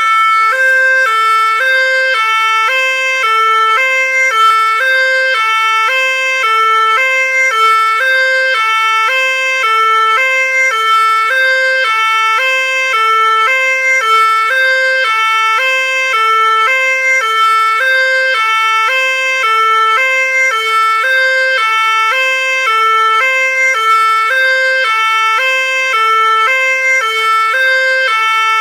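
Fire engine's two-tone siren sounding continuously, switching back and forth between a higher and a lower note at a steady pace, about one high-low cycle every second and a bit, with no rise or fall in pitch as it passes.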